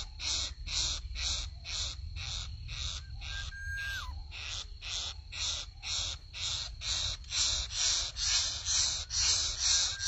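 Greater coucal nestlings giving harsh, rasping begging calls in a steady rhythm of about three a second while they gape for food. A short falling whistle sounds once near the middle.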